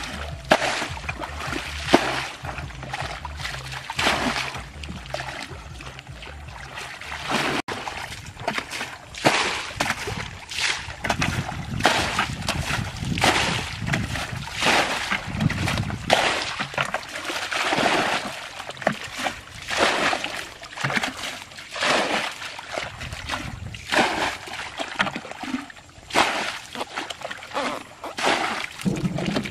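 A plastic bucket bailing muddy water out of a shallow ditch: repeated scoops and splashes as the water is thrown out, roughly once a second.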